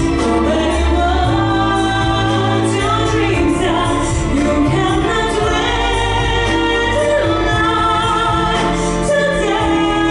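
A female singer sight-reading a pop song over an instrumental backing track, holding sung notes over the accompaniment.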